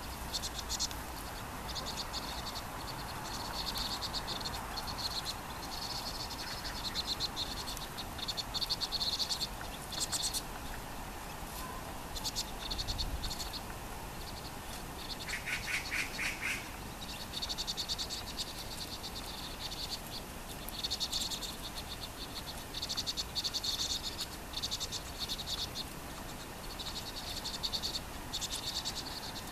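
Vinous-throated parrotbills calling: high-pitched, rapid chattering trills in short repeated bursts of about a second each. One lower trill comes about halfway through.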